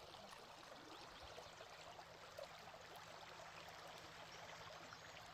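A small stream babbling and gurgling faintly and steadily.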